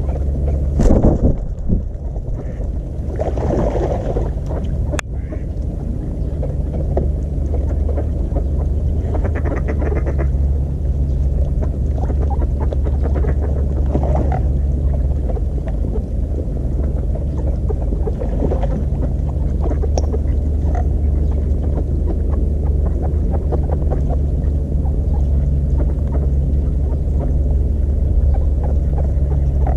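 Ducks quacking now and then over a steady low rumble, with a sharp click about five seconds in.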